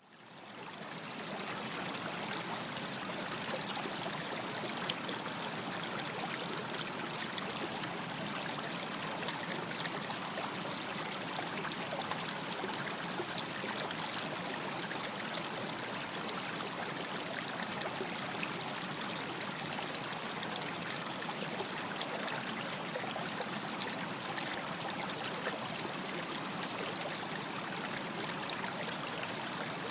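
A stream of running water, a steady rush with small splashes and trickles, fading in over the first second.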